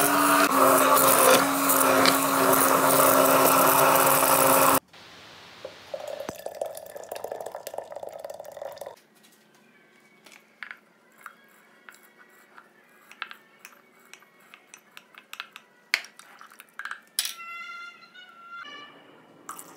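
Stainless-steel immersion blender running steadily in a glass bowl of cooked vegetables and broth, cutting off abruptly about five seconds in. Then a few seconds of quieter pouring, followed by scattered light ticks as crushed green wheat (frik) drops into a clay pot of broth.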